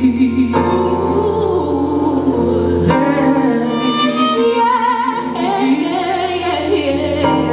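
Live jazz ballad music: an instrumental passage between sung lines, with sustained low notes and a wavering melody line.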